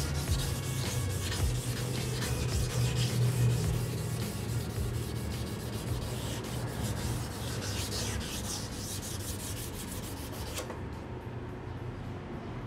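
Hand sanding of a motorcycle's steel body panel with 800-grit sandpaper: quick back-and-forth rubbing strokes over epoxy primer, smoothing out the pinholes and specks left from spraying. The strokes stop about two seconds before the end.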